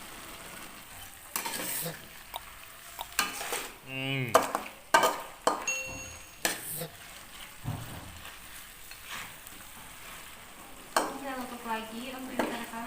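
A utensil stirring and scraping through a pan of chicken cooking in spiced broth, with a steady sizzle and repeated sharp knocks of the utensil against the pan.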